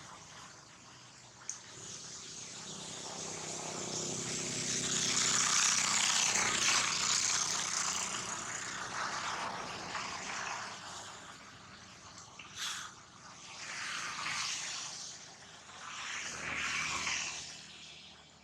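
A motor vehicle passing by, its noise rising to a peak about six seconds in and then fading, followed by two weaker swells of passing traffic.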